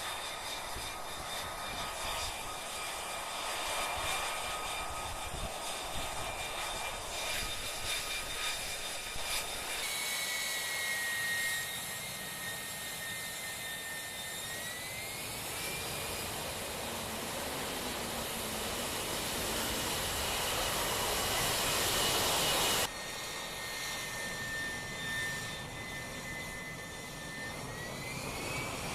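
F-35B jet engine (Pratt & Whitney F135) running with a steady high whine over a broad rush of noise. The whine rises in pitch twice, as the engine spools up. The sound changes abruptly twice, at cuts between shots.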